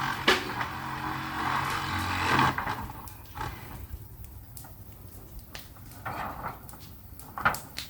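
An engine running steadily for about two and a half seconds, then fading out, followed by scattered knocks and clatters, with one sharper knock near the end.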